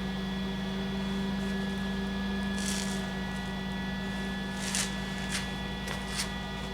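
Welding machine humming steadily, with a few short hissing crackles of the arc as brief welds are laid, the first about three seconds in.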